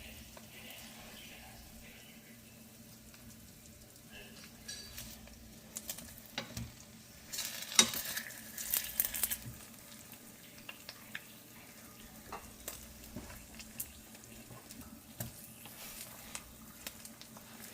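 Turon sizzling in a pan of caramelized sugar as they are rolled to coat them. Between about 6 and 10 seconds a utensil scrapes and knocks against the pan, with the loudest sharp knock near 8 seconds.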